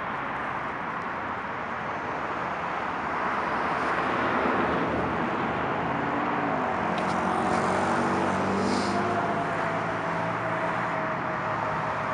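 Road traffic going by: a steady rush of tyre and engine noise, swelling a little in the middle, with a vehicle's engine hum that drops in pitch as it passes.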